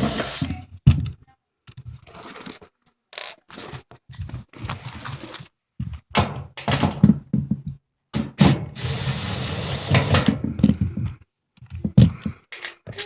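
Power drill running in short bursts as it backs out screws from sheet-metal panels, with thunks and knocks of the metal and the tool being handled. The longest run of the drill comes about eight seconds in and lasts about three seconds.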